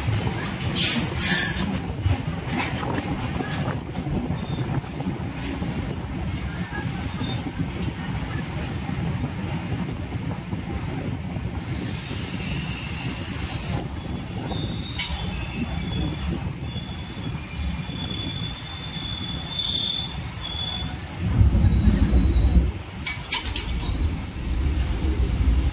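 Suburban electric multiple-unit train pulling out of a station and running on the rails with a steady rumble. The steel wheels squeal in thin high tones from about halfway through. There are a couple of sharp clacks, and the rumble swells louder about three-quarters of the way in.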